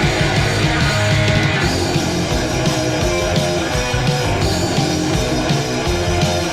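A heavy metal band playing: distorted electric guitar, bass and drums in a raw 1980s demo recording, with no vocals in this stretch.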